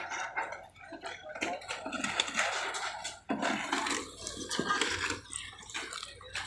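Construction site work noise during a concrete pour: irregular knocks, clicks and scraping, with no steady machine running.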